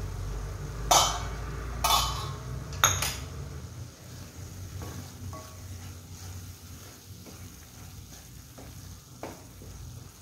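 Thick onion-tomato masala sizzling in a stainless steel pan as it is stirred and scraped with a wooden spatula, over a steady low hum. Three sharp metallic clanks in the first three seconds are the loudest sounds.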